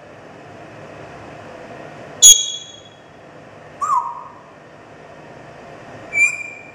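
African grey parrot giving three short calls: a loud, sharp one about two seconds in, a brief falling note near four seconds, and a short high whistle near the end.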